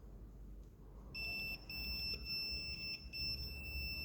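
Multimeter continuity beeper giving a steady high-pitched tone. It starts about a second in and cuts out briefly a couple of times as the probes make and lose contact. The tone signals continuity between two terminals of a turn-signal combination switch set to right-turn, the common and right-turn terminals.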